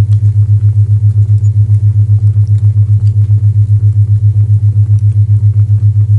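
Low isochronic tone humming near 100 Hz, pulsing on and off evenly about eight times a second, with faint fireplace crackles ticking underneath.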